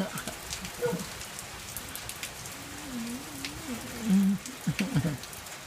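Heavy downpour falling steadily, with sharp drips hitting close by. In the second half a person's drawn-out, wavering call rises over the rain, loudest a little past the middle.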